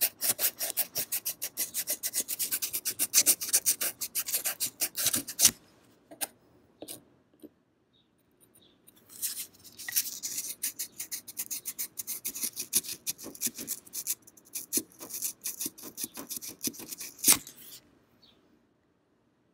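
Sandpaper rubbed by hand in quick short back-and-forth strokes over the steel of a straight razor blade, scraping away grunge and rust. It goes in two runs of strokes: the first stops about five seconds in, and after a pause of a few seconds the sanding starts again and stops shortly before the end.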